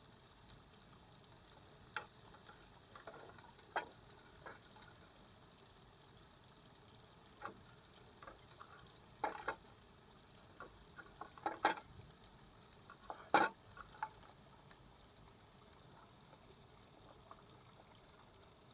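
Scattered light scratches and clicks on a thin clear plastic box as a small lizard clambers about inside it, the loudest near the middle and about two-thirds of the way in, over a faint steady hiss.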